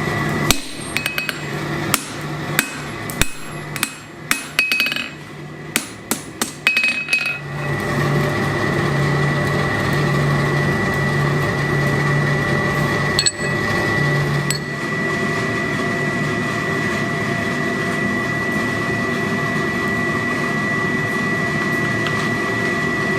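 Blacksmith's hammer striking steel on an anvil, a dozen or so irregular blows over a steady hum. About seven seconds in, the blows stop and a steady, even running noise takes over, broken by two faint clicks.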